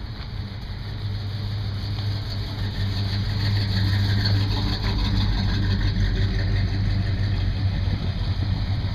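Classic cars' engines running as they drive slowly past one after another. The sound grows louder over the first few seconds as the cars come close, then holds.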